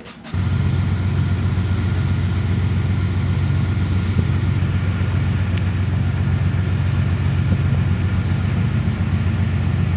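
Tracked infantry fighting vehicle's diesel engine idling with a steady low drone. It cuts in suddenly just after the start.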